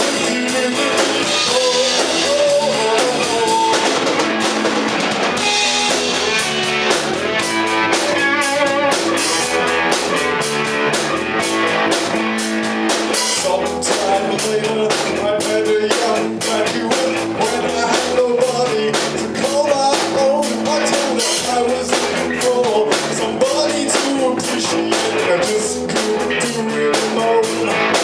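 Rock band playing live: electric guitar, electric bass and a Gretsch drum kit keeping a steady beat, with bending guitar lines over the top.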